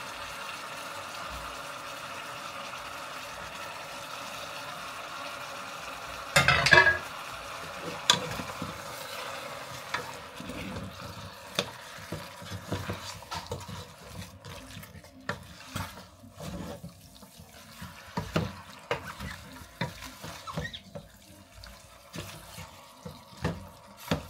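Wooden spoon stirring pieces of meat in a hot stainless steel pot, with steady sizzling at first, a brief louder rush about six seconds in, then many irregular clacks and scrapes of the spoon against the pot.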